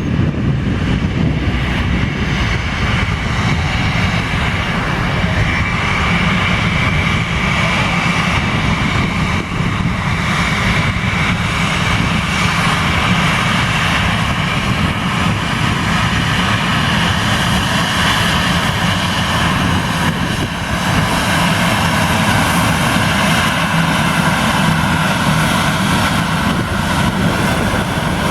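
Jet airliner engines running at takeoff power: a loud, steady rush of noise with a whining tone that drifts slightly in pitch.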